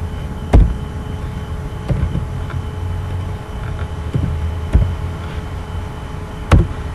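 Steady low hum of microphone and room noise, broken by a few sharp clicks from computer keys and mouse as text is selected and typed. The loudest click comes near the end.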